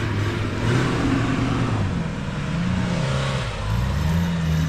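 Maruti Gypsy's engine revving up and down as the 4x4 drives through soft sand.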